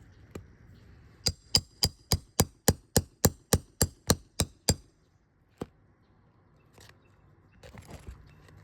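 Thirteen quick hammer strikes, about four a second, each with a metallic ring, driving a roof snake nail-removal tool to pull a roofing nail from under a three-tab asphalt shingle. One lone knock follows, then a brief scuffle near the end.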